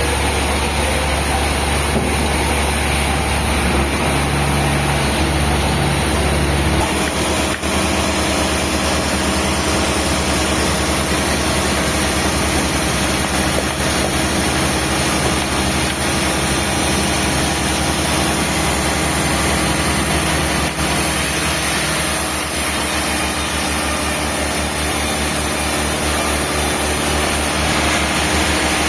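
Heavy sawmill machinery running with a loud, steady mechanical drone and low hum. The low hum changes abruptly about seven seconds in.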